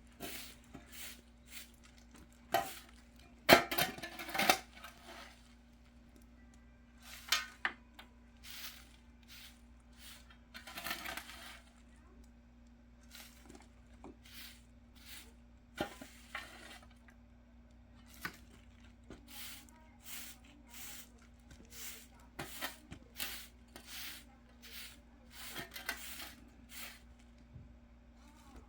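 Irregular light clicks and clatters of small hard objects being handled, with a louder cluster about three to four seconds in, over a steady low hum.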